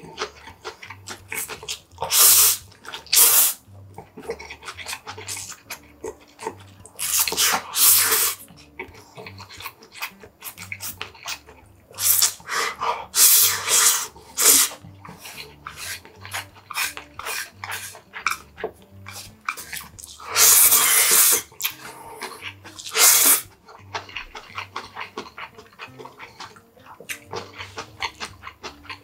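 Yakisoba noodles and sauce slurped close to the microphone in about ten loud, hissy slurps, with chewing and mouth clicks in between.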